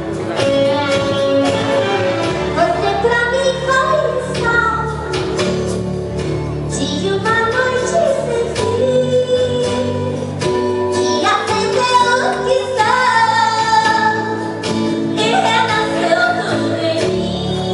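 A woman singing in a high voice over instrumental accompaniment, her melody gliding up and down through long held notes.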